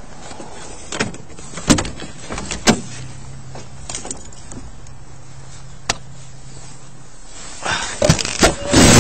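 Clicks and knocks at a car's open passenger door, with a steady low hum for about four seconds in the middle, then loud rustling of clothing against the body-worn camera near the end.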